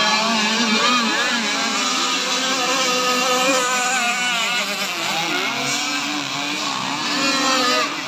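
Several radio-controlled racing powerboats running at full speed on the water, their motors making overlapping pitched whines that rise and fall as the boats pass by.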